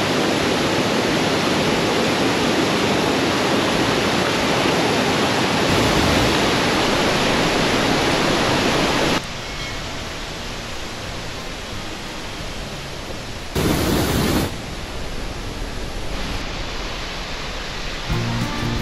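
Waterfall and river rapids: a steady rush of falling water. It drops suddenly to a lower level about nine seconds in and surges briefly again around fourteen seconds. Music comes in near the end.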